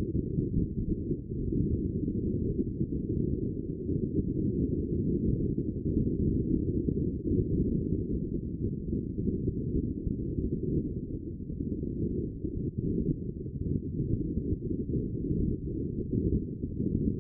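Muffled, low rumble of wind buffeting the microphone aboard a sailing yacht under way, rising and falling irregularly.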